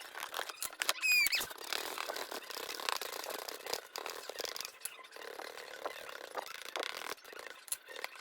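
Paintbrush scratching and dabbing against a cardboard box, a run of small irregular scuffs and taps, with one brief high squeak about a second in.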